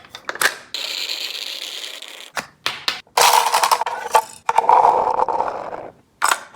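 Mechanical clicks and rattles from handling a plastic toy gun, broken by longer stretches of steady mechanical noise.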